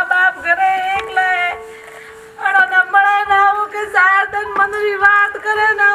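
Song: a high voice singing long, wavering notes, with a short break about two seconds in.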